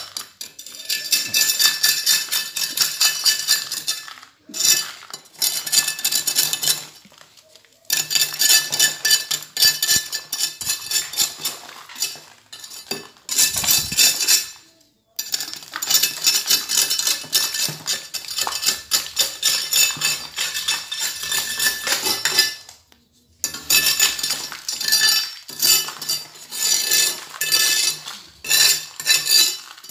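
A small metal tool scraping and chipping the rough burr off the edge of a concrete slab: fast gritty scraping with metallic clinks. It comes in bouts of a few seconds, with short pauses between.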